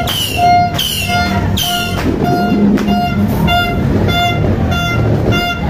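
Electronic alarm siren cycling through its tones: a falling whistle repeated about once a second, switching about two seconds in to a steady beeping about twice a second. A low rumble of noise runs underneath.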